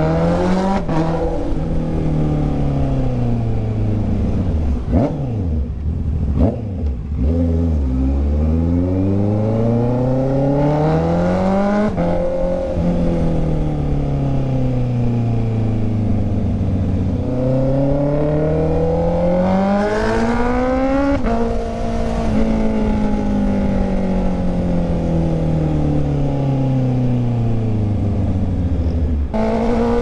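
Honda CB650R inline-four engine under way. Its pitch climbs as the throttle is opened, about 8 to 12 s and again about 17 to 21 s in, and sinks slowly as the throttle is rolled off. About five to seven seconds in comes a flurry of quick rev changes.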